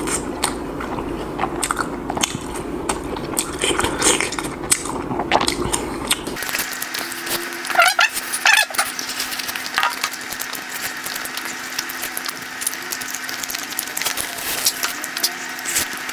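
Close-up eating sounds: biting and chewing fried chicken in hot sauce, with many small clicks and crackles. About six seconds in, the background changes to a steady hiss with a low hum.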